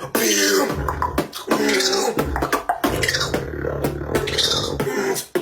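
Beatboxing: a person's mouth making sharp drum-like clicks and hits over a low hummed bass line, with pitched vocal sounds mixed in.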